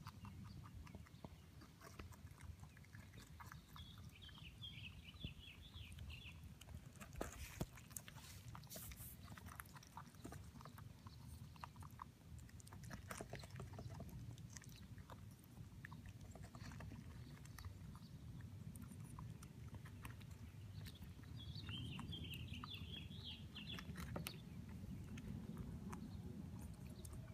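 Pet rabbit chewing a strawberry: faint, irregular soft clicks of nibbling and chewing over a low steady rumble.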